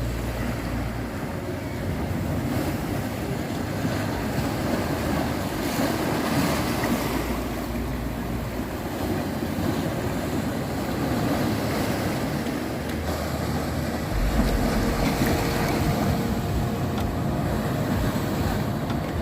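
Sea waves breaking and washing over rocks, a continuous surging surf, with wind rumbling on the microphone.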